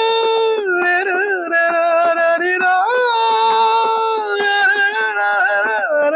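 A man singing the wordless shehnai interlude of a film song with his voice: one continuous, held melodic line with slides and ornaments between the notes, imitating the shehnai.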